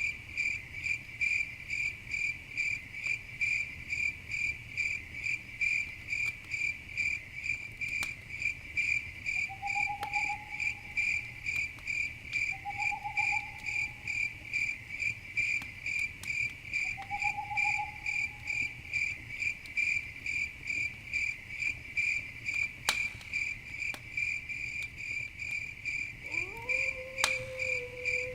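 Crickets chirping in a steady, even pulse, with a few faint pops from a campfire. Three short rising chirps come in the middle, and near the end a longer call glides up and then holds.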